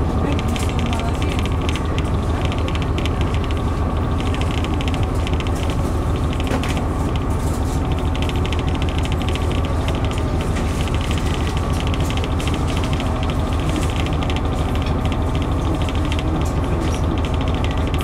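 Cabin running noise of a KiHa 121 diesel railcar under way: a steady low engine drone with wheel and rail noise, heard from inside the car.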